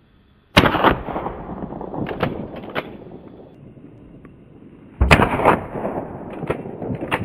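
Two shots from a Remington Model 12 .22 pump-action rifle, about four and a half seconds apart. Each is a sharp crack followed by a long, fading echo with a few lighter clicks.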